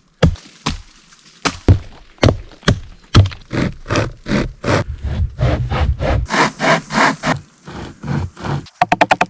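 Wood being worked with a hand tool: a run of strokes on wood, about two a second, some sharp knocks and others longer rasping strokes, turning into a fast rattle of rapid strokes near the end.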